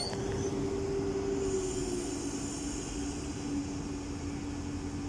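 SNCF TER electric train moving past the platform: a low rolling rumble with a steady hum that dips slightly in pitch in the first two seconds, then holds.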